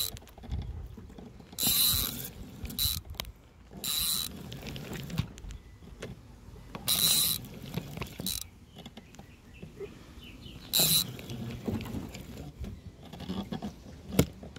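Fishing reel's drag buzzing in short bursts, about six times, as a hooked peacock bass pulls line off it.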